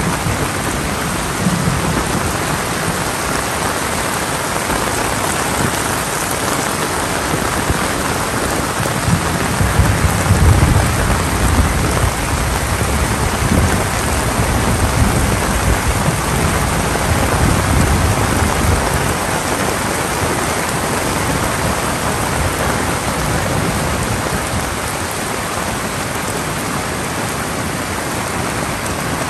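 Heavy rain falling steadily, with a low rumble of thunder rolling for several seconds from about a third of the way in.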